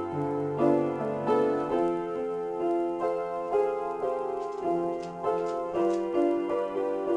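Upright piano played in a slow, improvised passage, chords and single notes struck roughly every half second to second and left to ring.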